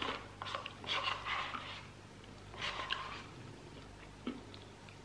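Eating sounds: a person eating melted ice cream, with short mouth noises in two spells and a single small click a little past four seconds in.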